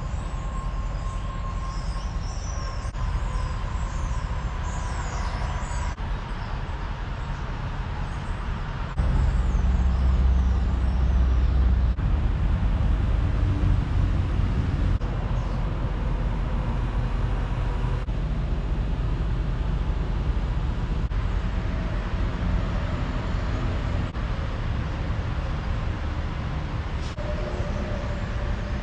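Steady road and engine noise of a car driving on the highway, a low rumble that gets louder about nine seconds in.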